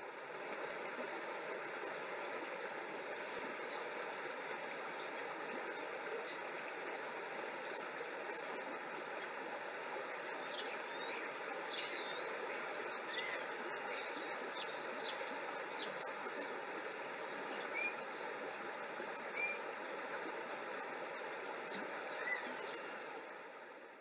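Steady hiss of rain with many birds chirping and whistling over it, a sunshower nature-sound track. It fades in at the start and fades out near the end.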